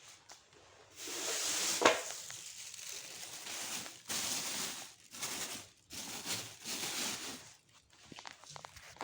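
Hissing spray in a Mercedes W202 engine bay during an engine wash, in several bursts: one long one and then shorter ones, with one sharp knock early in the first burst.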